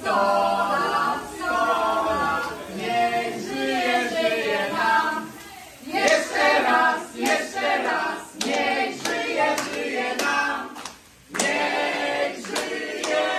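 A group of people singing a birthday song together, with hand-clapping that grows stronger about halfway through.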